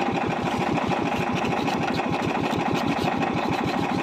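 Small outrigger fishing boat's engine running steadily, with an even pulse of about ten beats a second.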